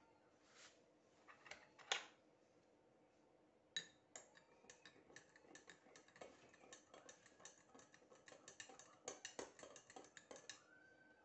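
Metal teaspoon stirring tea in a glass mug, clinking against the glass in quick, irregular ticks from about four seconds in. Two sharper single clinks come before it.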